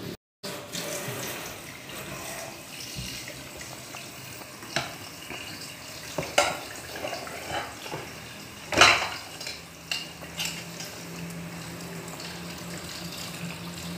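Pot of pempek boiling hard, the water bubbling and foaming steadily, with a few sharp clicks or knocks of metal, the loudest about nine seconds in.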